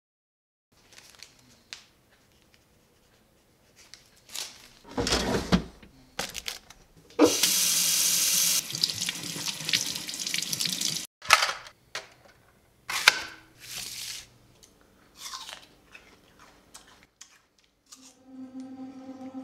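Kitchen faucet turned on with a sudden rush of water into a stainless steel sink as an apple is rinsed under it, running for a few seconds before being shut off abruptly, followed by a sharp click. Scattered knocks and thuds of handling come before and after.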